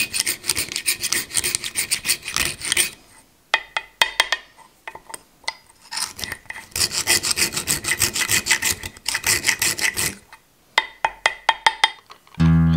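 A homemade tool-steel broaching tool rasping back and forth through the tang slot of a knife handle, in quick scraping strokes. The strokes come in long runs with sparser ones between, around four and eleven seconds in. Acoustic guitar music comes in right at the end.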